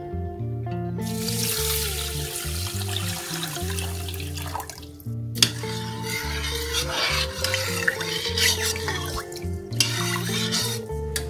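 Cold water running into a stainless steel pot of raw rice, then the rice stirred and swished through the water with a metal spoon to rinse it, with a short pause between. Background music plays throughout.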